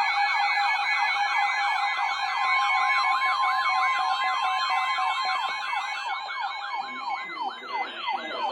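Electronic emergency alert siren tone sweeping rapidly up and down several times a second over steady alert tones. The sweep slows near the end.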